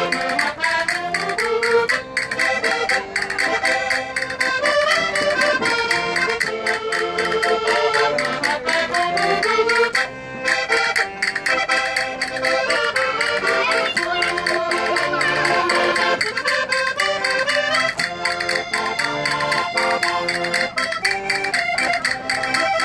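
Portuguese concertina (diatonic button accordion) playing a lively traditional Minho folk tune, a melody over a regularly repeating bass note, with a brief break about ten seconds in.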